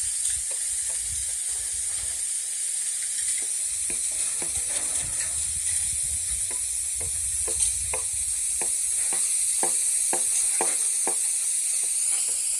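A steady high-pitched hiss with soft regular ticks about two to three a second, clearer in the second half.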